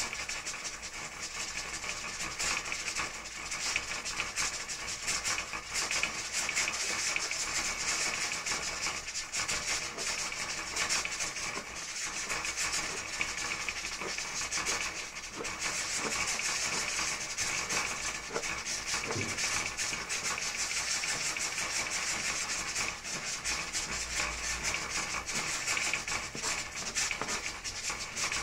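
Knife chopping fresh coriander on a plastic cutting board: many quick, repeated strokes of the blade through the stems onto the board, with a steady hiss behind.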